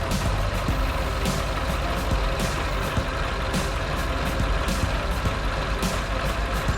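Truck engine running steadily, with a short burst of noise about once a second.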